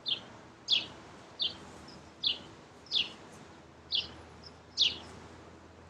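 A bird calling over and over: short, high chirps that drop in pitch, about seven of them, each roughly three-quarters of a second after the last.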